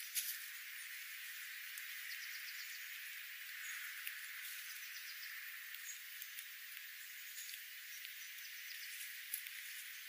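Flock of sparrows feeding on seed on gravel: scattered light ticks and clicks, with a few very brief high chips, over a steady faint hiss.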